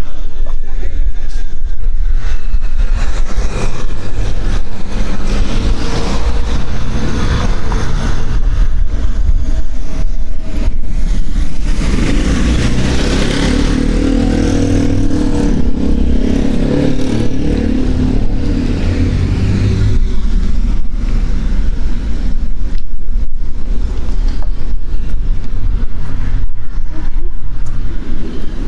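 Street ambience with a motor vehicle passing close by, loudest about halfway through, over a constant low rumble.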